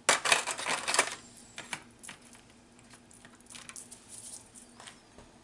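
Disposable aluminium foil pan crinkling and rustling as cooked lasagna noodles are laid into it and pressed flat by hand. It is loudest in the first second, then goes on as lighter scattered clicks and rustles.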